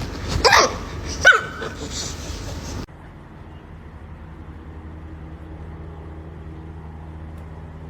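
A dog vocalizing in short, pitch-bending yelps and whines, about three of them in the first second and a half. About three seconds in the sound cuts abruptly to a steady low hum.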